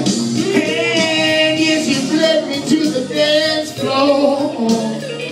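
Live singing over backing music: the singer holds long notes with a wide vibrato, two sustained phrases between sung lines.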